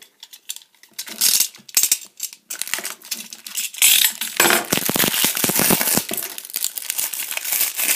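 Plastic wrapping crinkling and rustling as a plug-in power supply with a coiled cable is handled and unwrapped, starting about a second in and continuing densely to the end.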